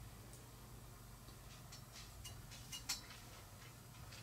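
Faint small clicks and ticks of fly-tying materials and tools being handled at the vise, the clearest about three seconds in, over a steady low hum.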